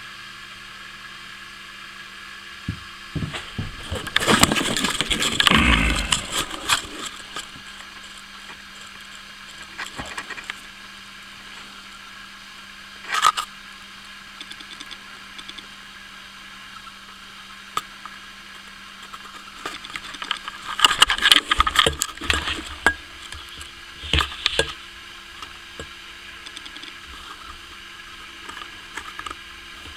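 Bursts of clattering and rustling from handling at a glass-fronted terrarium while a snake is put back inside with a metal snake hook: a longer bout a few seconds in, a short knock near the middle and another bout later on, over a faint steady hum.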